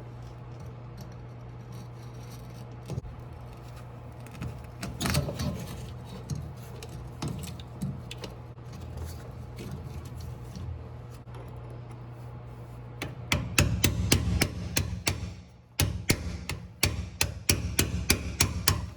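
Hand tools working on metal: scattered knocks and clinks, then a run of rapid, sharp metallic clicks, several a second, over a steady low hum.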